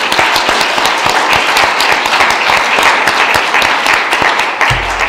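Audience applauding: a dense, steady clatter of many hands clapping that begins to thin out near the end, with a low thump shortly before it does.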